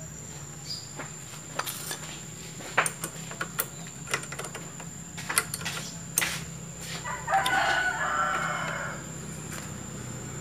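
A rooster crows once, about seven seconds in, a single call that falls in pitch over a second and a half. Before it come scattered sharp metallic clicks of hand tools on the motorcycle's front brake caliper, all over a steady low hum.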